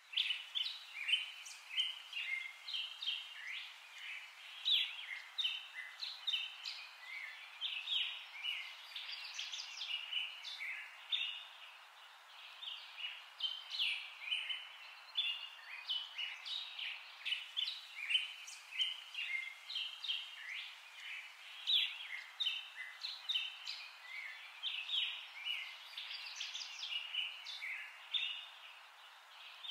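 Many small birds chirping and twittering in a dense, continuous chorus over a faint hiss.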